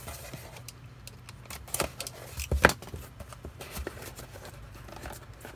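Handling noises: scattered light clicks and rustles of small objects being picked up and moved, with a sharper knock about two and a half seconds in.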